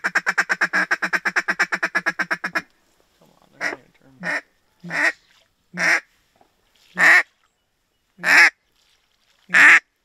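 A hand-held duck call blown by a hunter to bring in passing ducks. First comes a fast chatter of short quacks, about ten a second. After a brief pause come seven single drawn-out quacks, each longer, louder and further apart than the last.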